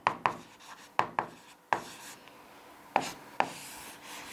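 A stylus writing on an interactive display board's screen: irregular sharp taps as it strikes the glass, with faint rubbing strokes between them.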